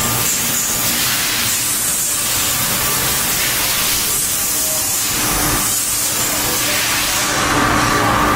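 Dry vapor steam cleaner blasting steam in a loud, steady hiss, dipping briefly a few times as the jet is moved. A steady tone joins in near the end.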